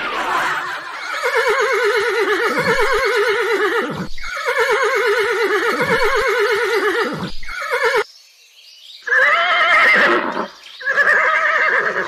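Horse whinnying repeatedly with a quavering pitch: two long whinnies, then after a short pause two shorter ones near the end.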